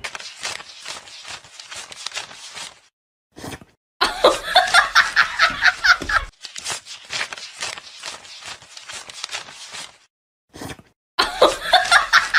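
Paper banknotes being counted with quick crisp flicks, broken by bursts of rapid snickering laughter.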